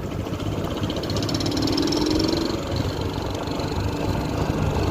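Yamaha XTZ single-cylinder four-stroke motorcycle engine running steadily with a low rumble. It runs with the air filter removed and a washer fitted in the exhaust.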